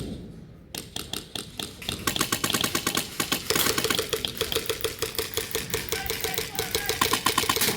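Airsoft guns firing in rapid automatic strings: a dense, fast run of sharp clicks that starts about a second in and gets louder and denser after a couple of seconds, with a steady motor-like whine under it in the second half.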